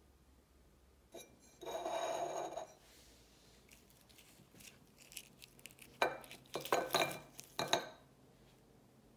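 A short scraping sound about two seconds in. Then, for about two seconds, a run of sharp clinks and taps as foil-wrapped Hershey's Kisses chocolates are set down one after another on a small dish on a tabletop.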